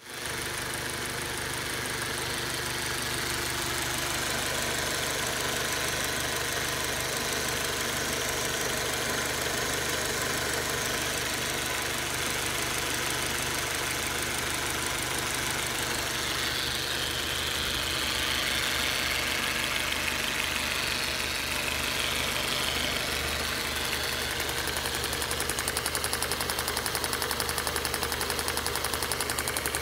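2005 Audi A4 B6's 1.8-litre turbocharged four-cylinder engine idling steadily. A fast, even clicking over the idle grows loudest in the last few seconds, which the owner puts down to the EVAP valve.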